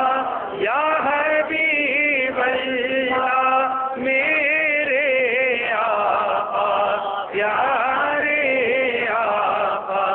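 A man chanting an Urdu naat, a devotional poem in praise of the Prophet, in long wavering held notes with short pauses for breath between phrases.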